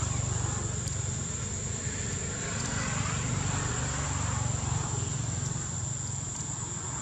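Steady outdoor background noise: a low rumble with a constant high-pitched whine above it.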